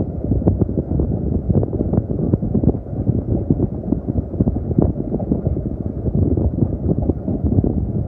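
Moving steam-railway carriage: a steady low running rumble with frequent short knocks, and wind buffeting the microphone.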